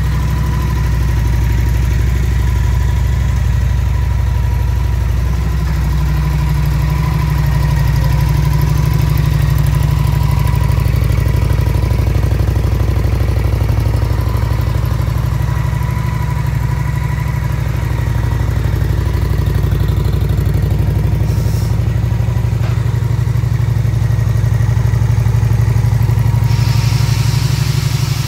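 Honda VT750S's 745 cc V-twin engine idling steadily.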